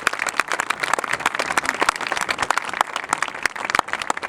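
Crowd applauding: dense, steady clapping from many hands, celebrating an award win.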